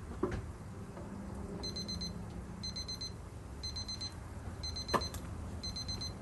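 Digital kitchen timer alarm going off, rapid high beeps in short bursts about once a second, starting a couple of seconds in: the 7-minute frying time is up. Two sharp knocks, one just after the start and one near the end.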